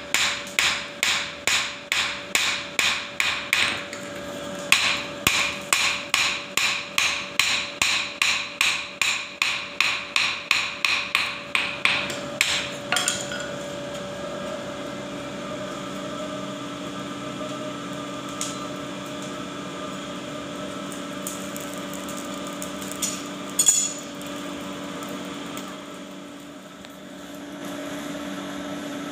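Blacksmith's hand hammer beating a red-hot axe head on an anvil, quick metal-on-metal blows about three a second, with a short break about four seconds in. The hammering stops about twelve and a half seconds in, leaving a steady hum with a single sharp knock near the end.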